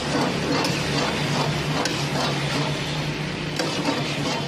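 Chicken pieces sizzling as they fry in lamb fat in a karahi, stirred with long metal tongs that scrape and clink irregularly against the pan. A steady low hum runs underneath.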